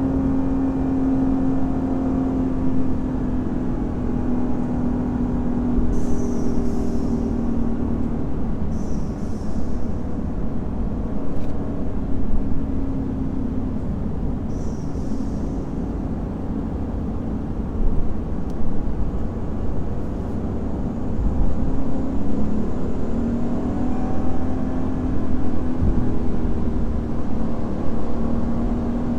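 Lexus IS500 F Sport Performance's naturally aspirated 5.0-litre V8 running steadily at a light-throttle cruise, a low even drone. Its pitch eases down slightly about a quarter of the way in and climbs again near the end as the car picks up speed.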